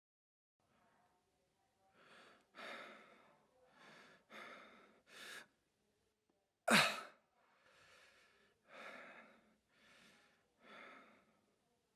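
A man breathing out in a series of heavy sighs and huffs, about ten in all, with one sharp, much louder burst of breath about seven seconds in.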